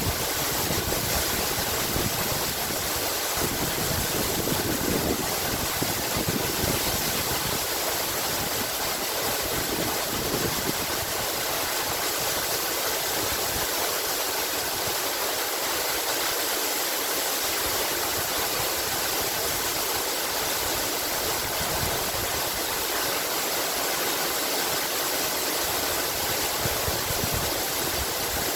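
Waterfall: a steady rush of falling water, even and unchanging, with a little more low rumble in the first few seconds.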